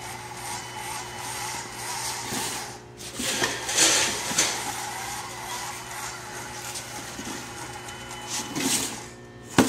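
A small tracked robot's electric drive motors whine steadily while its rubber tracks rattle along the floor. The sound swells louder twice, about three and a half seconds in and again near the end.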